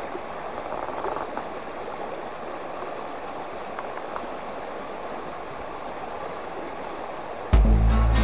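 Shallow stream water rushing steadily over rocks and around a person lying in it. Loud music with a heavy bass comes in suddenly about seven and a half seconds in.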